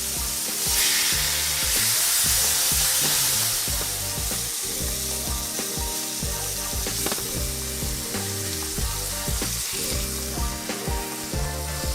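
Food sizzling as it fries in a pan, swelling louder for a few seconds about a second in, over background music with a steady bass line.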